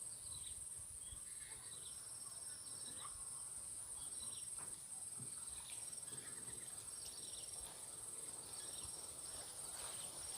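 Faint chorus of insects: a steady, high-pitched pulsing trill with shorter repeated chirps over it.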